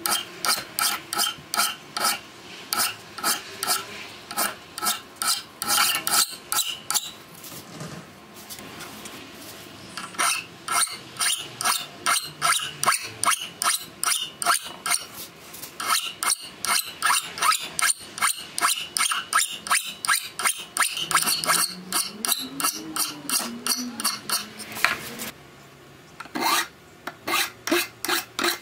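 Hand file scraping across the steel of an axe head in quick, even strokes, about two a second, dressing the edges of the poll. The filing stops for about three seconds roughly a third of the way in, and briefly again near the end.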